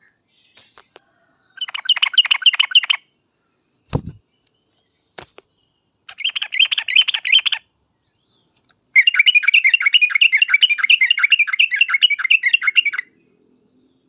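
Yellow-vented bulbul (trucuk) calling in quick chattering runs of notes, three bouts, the last and longest lasting about four seconds. A short low thump sounds about four seconds in.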